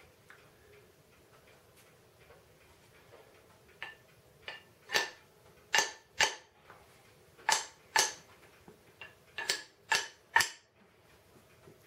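About ten sharp metal-on-metal knocks with a short ring, starting about four seconds in and coming irregularly half a second to a second apart, as the broken steel auger shaft of a Craftsman 28-inch snow thrower is struck to drive its main drive gear off the shaft.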